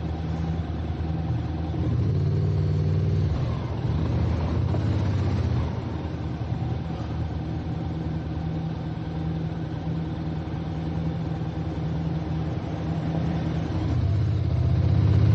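Car engine running on a steep mountain road, its hum swelling about two seconds in and again near the end.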